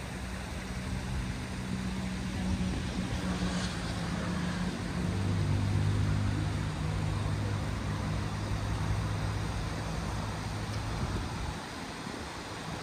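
A motor vehicle engine running nearby over steady outdoor background noise. Its low drone steps down in pitch, grows strongest midway and fades near the end.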